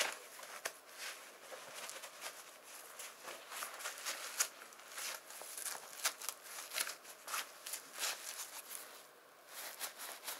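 Dainese Tempest D-Dry winter motorcycle gloves being handled: irregular rustling and scuffing of the glove material, a dense run of short brushes and soft clicks, easing briefly near the end.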